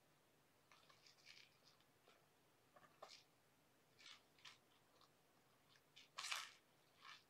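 Faint, scattered scratching and rustling from a Siamese kitten playing on carpet, a run of short scrapes and clicks with the loudest about six seconds in.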